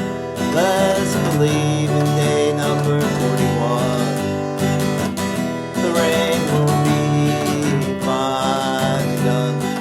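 Acoustic guitar strumming chords in a steady rhythm, an instrumental passage of a folk song.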